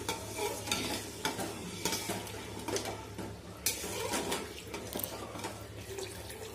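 Metal ladle stirring a watery khichuri in a stainless steel pot, with irregular clinks and scrapes against the pot, several a second.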